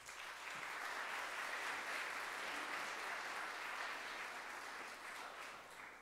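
Audience applauding: a steady spread of many hands clapping that fades away near the end.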